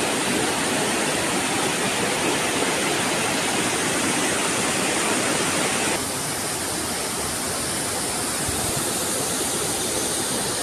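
Floodwater from the overflowing Tansa lake rushing down the dam spillway: a loud, steady roar of fast white water. It drops slightly in level about six seconds in.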